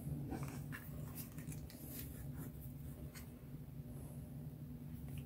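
Faint handling noise as hands turn over a Crosman 357 Four CO2 revolver: light rubbing and a few soft clicks spread through, over a steady low hum.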